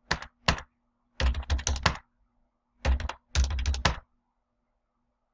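Typing on a computer keyboard: two single keystrokes, then a quick run of keys lasting under a second, then two more short runs, stopping about four seconds in.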